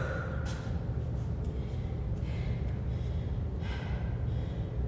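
A woman breathing between high-intensity intervals, a few audible breaths over a steady low hum.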